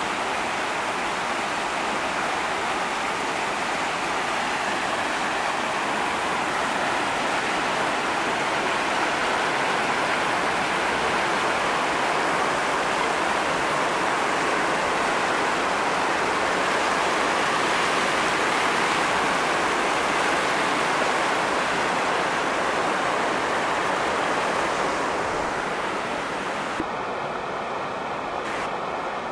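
Creek in flash flood: fast, muddy floodwater rushing down a rocky channel, a loud, steady rushing noise that eases slightly near the end.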